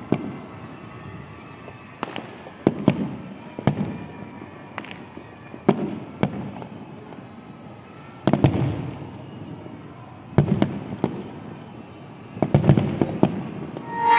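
Aerial firework shells bursting with sharp bangs, many at irregular intervals and some in quick clusters, each trailed by a low rolling echo.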